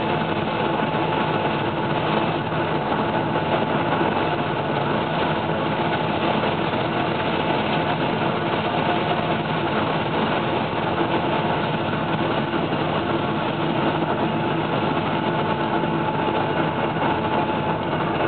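Massey Ferguson 9895 combine's engine and threshing machinery running steadily, heard from inside the cab, a constant drone with a steady whine running through it.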